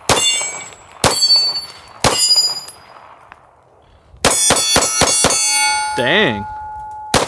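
Staccato XC 2011 pistol fired at steel targets. Three shots come about a second apart, then a quick string of about six, then one more near the end. Each hit is followed by the ringing clang of the steel plates, and after the fast string one plate rings on steadily.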